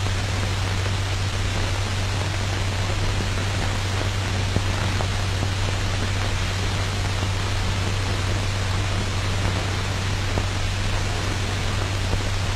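Steady hiss with a constant low hum underneath: the background noise of an old film soundtrack.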